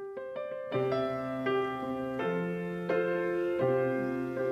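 Piano starting suddenly with a quick spread of notes, then playing slow held chords as the introduction to a song.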